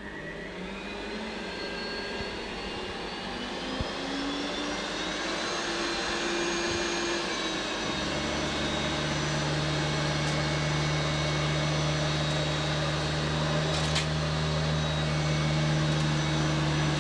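Hoover Turbomaster upright vacuum cleaner running, its motor whine rising in pitch over the first several seconds as it spins up, then holding steady. About eight seconds in, a strong low hum joins the rushing air noise.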